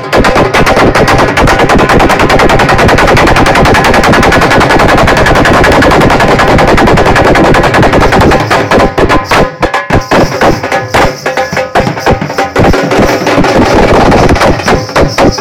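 Dhol drum beaten in a fast, dense rhythm, recorded so loud that it overloads the microphone. The beat turns choppier about ten seconds in.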